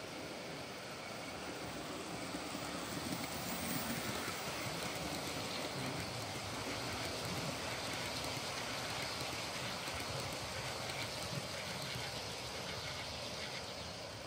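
OO gauge model trains running on the layout's track: wheels rolling on the rails and small motors whirring as a train of coaches passes close by. The sound grows louder over the first few seconds and eases off near the end.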